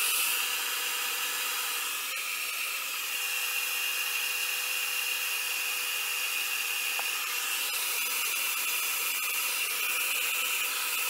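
Revlon brush blow dryer running steadily, a high whine over a rush of air, blown across wet alcohol ink to dry and push it.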